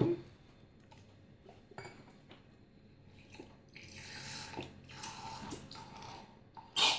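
Liquid slime ingredient being poured from a container into a bowl, a soft trickling wash, after a few small clicks of handling the containers; a brief louder clatter near the end.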